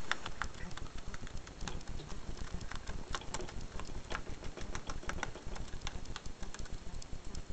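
A hamster chewing cardboard: a rapid, irregular run of small crunching clicks.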